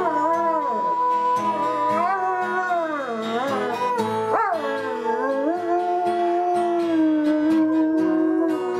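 A dog howling along with music: long drawn-out howls that slide up and down in pitch and hold steady notes, over a backing track with a beat.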